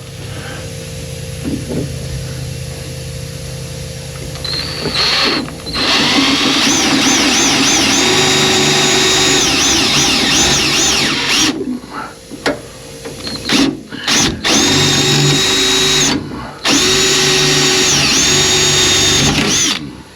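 Electric drill motor running in four or five bursts of a few seconds each, its whine dipping and rising as the trigger is eased and squeezed; the first few seconds are only quiet handling noise.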